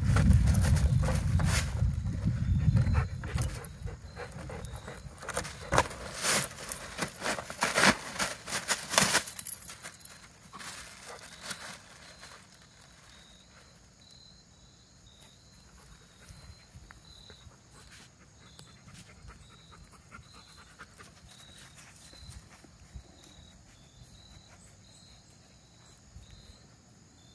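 Goldendoodle panting while it tugs at a foil balloon, the balloon crinkling in irregular bursts for the first ten seconds or so over a low rumble that fades after the first few seconds. After that it is quiet apart from a faint high chirp repeating about once a second.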